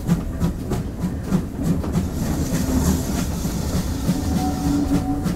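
GWR Collett Goods 0-6-0 steam locomotive running along the line: a steady low rumble with a rapid, rhythmic clicking and a brief hiss near the middle.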